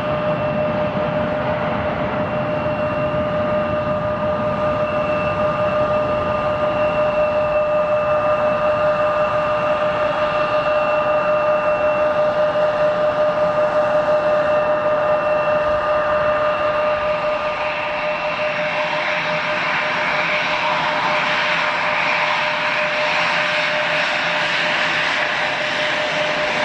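Jet airliner engines running at taxi power: a steady whine with several pitch lines over a rushing hiss. From about two-thirds of the way in, the whine gives way to a broader, brighter rush as a jet taxis close by.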